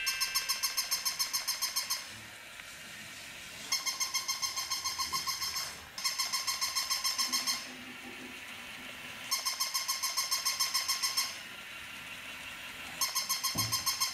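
Battery-operated toy puppy giving out its electronic barking: fast runs of about six high, yappy barks a second, each run lasting about two seconds, repeating with pauses of about two seconds between them.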